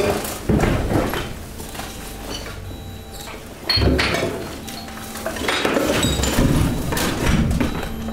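Mixed household garbage (plastic, styrofoam, cardboard and wood) cracking and crunching as it is pushed and crushed inside a hydraulic garbage press. There are heavy crunches about half a second in and again near four seconds, a dense run of crackling from about five and a half to seven and a half seconds, and a steady hum underneath.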